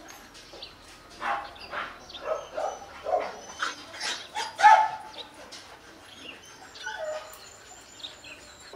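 H'Mông bobtail dog barking in a run of short barks over the first half, the loudest about four and a half seconds in, with a few fainter calls later on.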